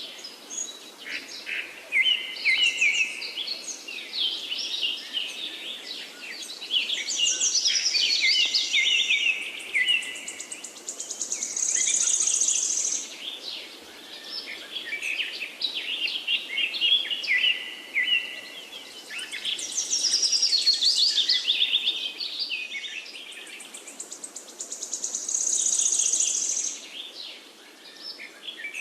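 Forest bird chorus: several birds chirping and calling over one another, with rapid high trills now and then.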